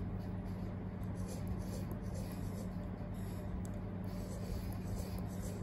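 S Pen stylus tip scratching and tapping on the glass screen of a Samsung Galaxy Tab S9 FE in short handwriting strokes, several a second, over a steady low hum.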